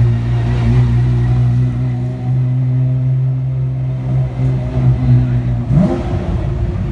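A motor vehicle's engine running at a steady pitch, with a short rise in revs about six seconds in.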